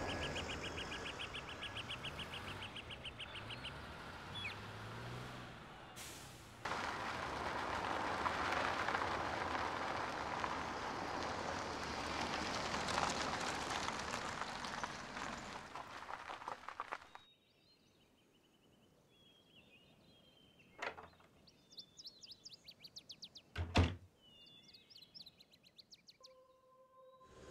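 Outdoor ambience: a steady rushing noise that cuts off suddenly about two-thirds of the way through, leaving quiet with small birds chirping. Near the end come two sharp knocks, the second the loudest.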